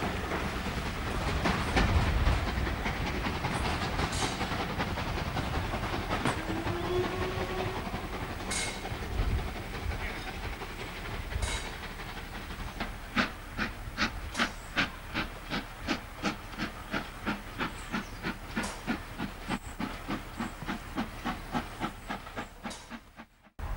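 Steam locomotive at a station: steam hissing, then from about halfway a steady run of exhaust beats, about three a second. The sound cuts off abruptly near the end.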